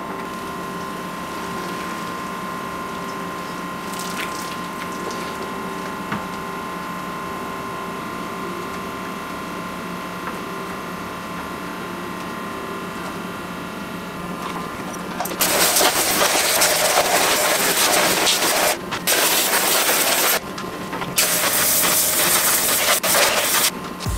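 Pressure washer running with a steady hum, then spraying water in loud hissing stretches from about fifteen seconds in, broken by two short pauses.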